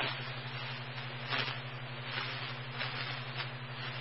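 Radio scanner feed static in a gap between dispatch transmissions: a steady hiss with a low hum under it, and a faint crackle about a second and a half in.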